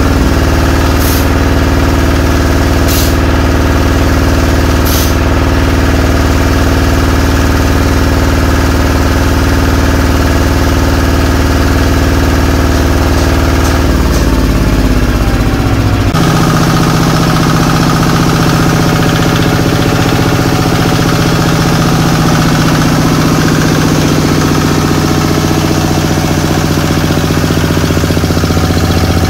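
HINOTA RT 155 plus single-cylinder horizontal diesel engine running steadily with a fast, even chugging beat. About halfway through the engine note shifts, then settles and holds steady again.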